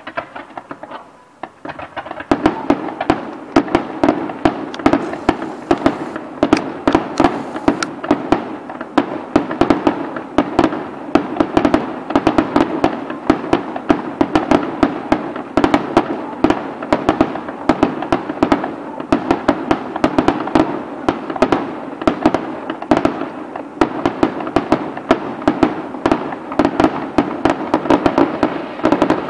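Fireworks display: a dense, continuous barrage of aerial shell bursts and crackling stars, many sharp bangs a second, which thickens about two seconds in.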